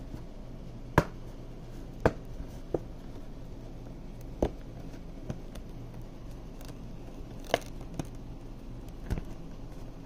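Irregular sharp clicks and taps, about eight in all, from a fabric lamp shade being handled and clipped onto a small lamp. The loudest comes about a second in.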